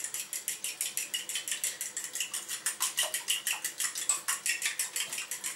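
Eggs being beaten with a fork in a small white bowl, the fork clicking against the bowl in a fast, steady rhythm of about nine strokes a second.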